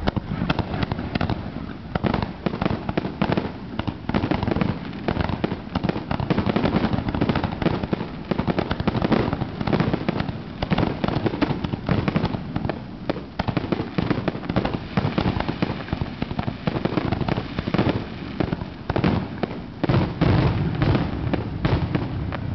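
Aerial fireworks launching and bursting in quick succession: a dense, unbroken barrage of bangs, many to the second.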